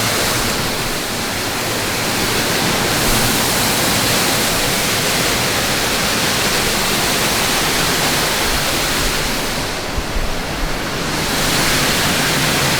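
Waterfall rushing and splashing steadily, heard close: a loud, even wash of falling water.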